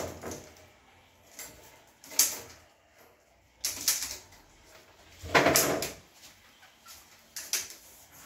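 LED channel strip being pressed by hand up against the underside of a kitchen wall cabinet: scattered knocks and scrapes of the strip against the cabinet, the longest a scrape of about half a second some five seconds in.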